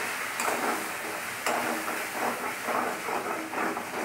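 Spice paste sizzling in a metal kadai as it fries in a little turmeric-chilli water, while a metal spatula stirs it, scraping the pan in quick repeated strokes. There are a couple of sharper clicks, about half a second and a second and a half in.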